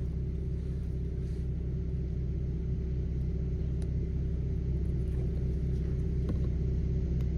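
Infiniti G35/G37's V6 engine idling steadily, a low even hum, with a few faint clicks from handling small parts.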